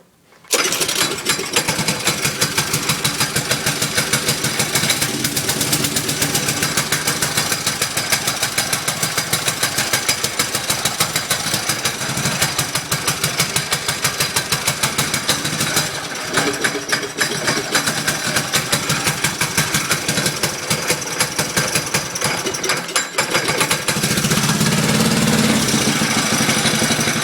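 Briggs & Stratton 900 series 205cc single-cylinder engine running with a fast, even firing beat while its choke is set. It catches about half a second in, falters briefly twice, then runs steadier and a little louder near the end.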